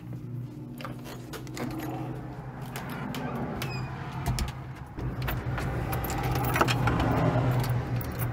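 Keys on a lanyard jangling and clicking against a front-door knob and lock as the door is handled and locked, with a steady low hum underneath.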